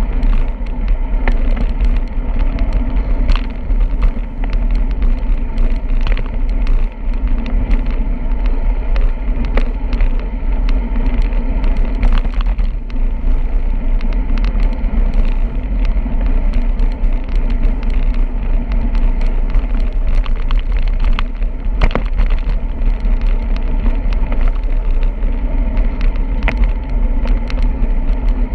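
Steady wind rush and rumble on the microphone while riding a bicycle, with road noise and many scattered short clicks and rattles.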